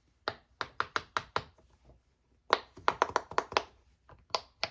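Silicone push-pop bubble fidget toys popping as a finger slides down a row of bubbles: a quick run of about six pops, a pause of about a second, then a run of about eight more, with a few stray pops near the end.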